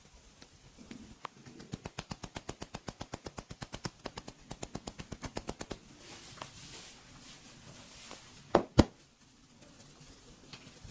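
Rapid, even run of hand strikes in percussive massage tapping for about four seconds, followed by two loud, sharp slaps in quick succession.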